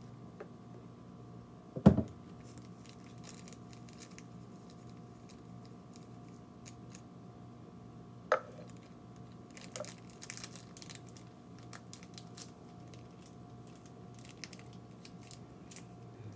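Thin plastic ice candy bag being handled and twisted closed: soft crinkling and crisp rustling, with a sharp knock about two seconds in and a lighter knock near the middle, over a steady hum.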